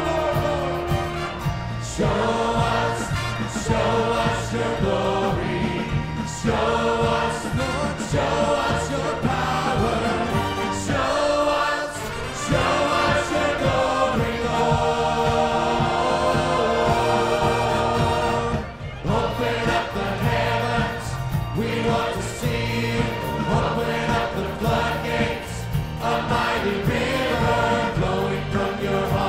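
Church choir singing a contemporary worship song, backed by a live band with drums and bass keeping a steady beat; the music drops out for a moment about two-thirds of the way through, then comes back in.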